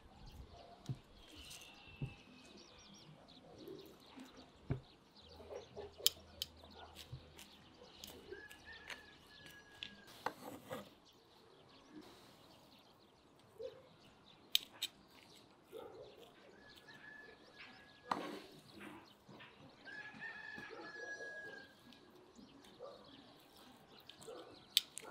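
Scattered sharp clicks and taps of metal tongs laying grilled lamb and fillings into a bread roll, with birds calling several times in the background.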